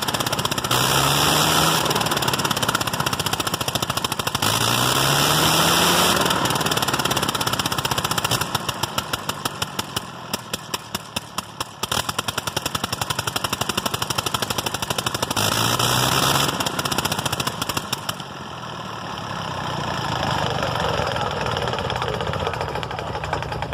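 Nine-cylinder 1918 Gnome rotary aircraft engine running with its propeller turning, its speed rising in a few surges. In the middle it falls to slow, uneven separate firing beats, then picks up and settles to lower, steadier running.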